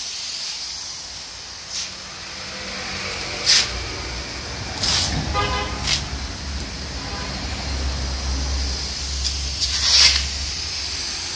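Road traffic rumbling past with a brief car horn toot about five seconds in, over a steady hiss. Several short, sharp rasps of masking tape being pulled off the roll as newspaper is taped over the van's windows.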